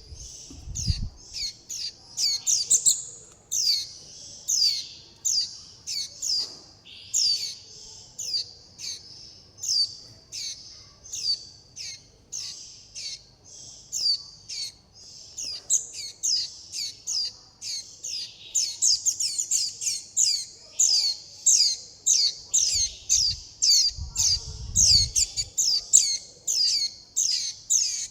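Juvenile white-eyes giving continuous high, thin begging calls: short downward-sweeping notes repeated about two to three times a second, coming faster in the second half. There are brief low rumbles near the start and again past the middle.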